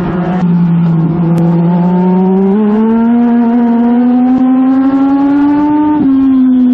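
Yamaha 1250 cc four-cylinder motorcycle engine of a US Legend race car under full throttle, heard from the in-car camera. Its pitch climbs steadily for several seconds as the car pulls, then drops sharply about six seconds in as the revs fall.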